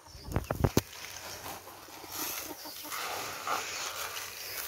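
Hands stirring granular NPK and SSP fertilizer mixed with powder in a plastic tub: a few dull thumps about half a second in, then a steady gritty rustle and scrape of the granules being turned over.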